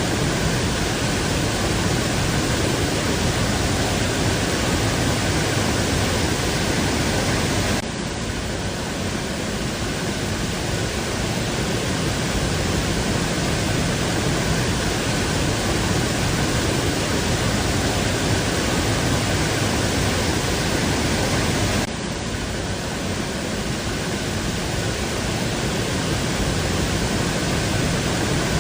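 Steady, loud rush of a waterfall, a dense even noise with no distinct events. It drops a little abruptly twice, about 8 and 22 seconds in, each time building back up over the next few seconds.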